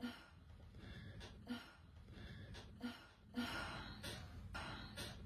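A woman gasping and breathing heavily: a run of short, breathy puffs about a second or so apart, with one longer breath in the middle.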